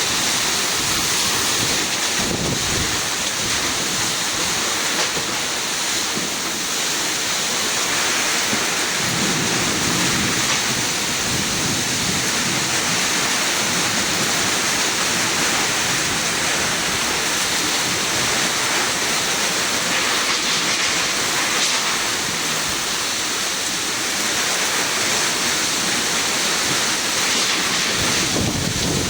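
Heavy rain pouring steadily in a summer thunderstorm, with low rumbles of thunder swelling about two seconds in, around ten seconds in, and near the end.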